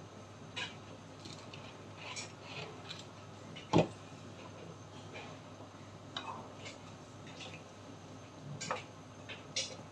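Light, scattered ticks and pops from chicken wing adobo simmering in a nonstick frying pan, with one sharp knock a little under four seconds in. Near the end a wooden spatula knocks and scrapes in the pan as the wings are stirred.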